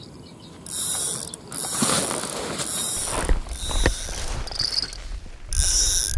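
Fishing reel ratcheting out line in repeated loud bursts as a hooked fish runs, starting just under a second in, with knocks and low rumbling as the rod is grabbed and lifted.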